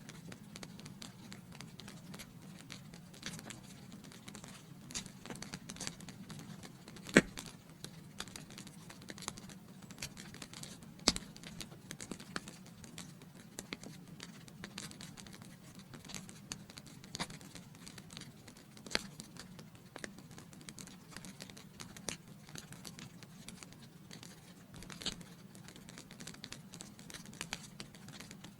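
Wood fire in a fireplace crackling steadily with scattered snaps, and two sharp, louder pops about seven and eleven seconds in.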